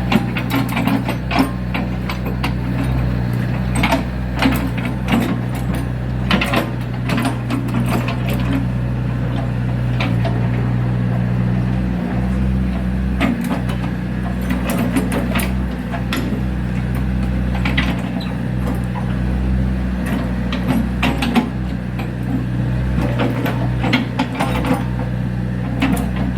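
Kobelco hydraulic excavator's diesel engine running steadily, with frequent short clicks and knocks over it.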